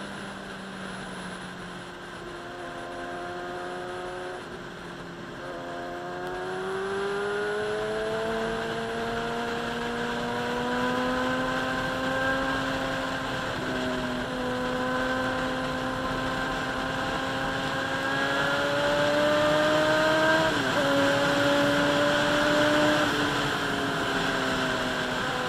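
Inline-four sportbike engine under way, its pitch climbing as it accelerates, with a small drop about halfway and a sharp drop about three-quarters through as it shifts up, then easing off. Wind rush runs under it.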